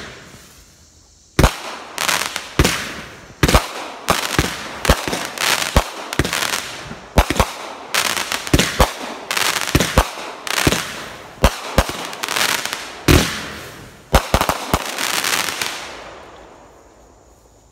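Winda Smoke Dragon smoke cake firing a quick, uneven series of shots, each a sharp pop followed by a hiss, for about fifteen seconds, then dying away.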